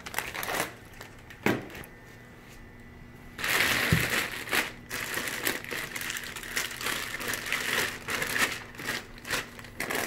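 Plastic fish-shipping bags and the plastic box liner crinkling as hands rummage through a foam-lined shipping box of bagged fish. A few short knocks come in the first two seconds, then continuous rustling from about three and a half seconds in.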